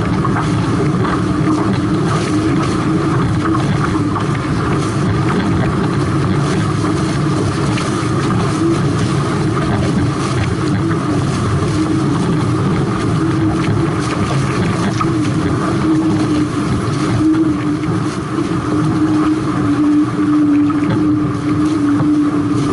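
Hobie 18 catamaran hull slicing through choppy water at about 18 mph: a loud, steady rush of water and spray, with wind, and a steady hum that grows stronger in the last few seconds.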